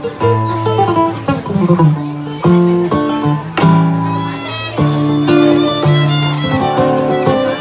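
Acoustic guitar and bowed violin playing a tune together as a live duo.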